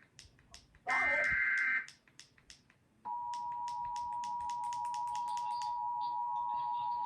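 Emergency Alert System broadcast: the last one-second burst of the SAME header data, a harsh warbling digital screech, and then, about three seconds in, the steady two-tone EAS attention signal, which holds on. Scattered clicks run under it.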